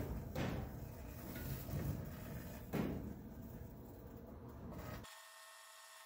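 Hamilton Beach microwave oven running with its steady hum, as aluminium foil inside arcs with a few sharp crackling pops: one at the start, another about half a second in and a louder one near three seconds in. The sound cuts off abruptly near the end.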